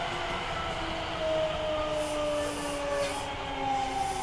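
Osaka Municipal Subway 66 series train running, its Hitachi-designed Mitsubishi GTO VVVF inverter whining over the rumble of the car. The whine slides down in pitch, then jumps back up about a second in and again near the end.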